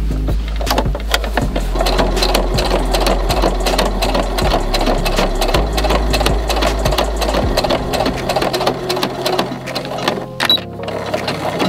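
Electric sewing machine stitching fabric along a zipper: a fast, even run of needle strokes, with a short pause about ten seconds in.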